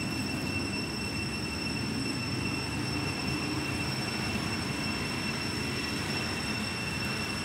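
A steady high-pitched whine with overtones, held without change, over a constant low rumble.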